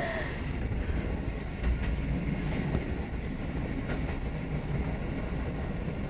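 Kotoden electric train running along the line, heard from the front of the car: a steady low rumble with a few faint clicks about a second apart from the wheels on the track.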